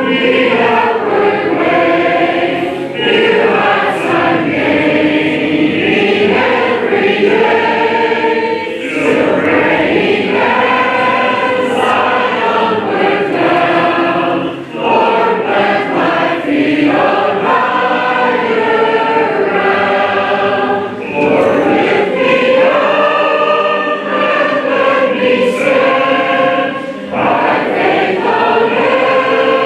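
Church congregation singing the closing hymn together, unaccompanied in the Church of Christ a cappella tradition, with short breaths between phrases.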